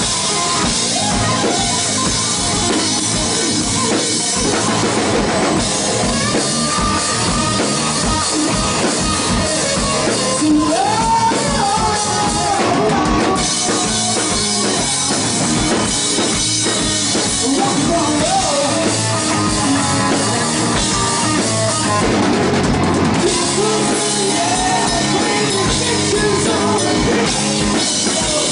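Live hard rock band playing loud: a Les Paul-style electric guitar leads over a full drum kit, with bending melodic lines through the middle and singing near the end.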